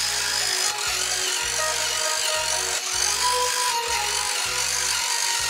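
Battery-powered Barbie toy horse running a music-and-movement mode: tinny music from its speaker over the steady whir of the small electric motor that moves its legs, with a low pulse about twice a second. The motor is about as loud as the music.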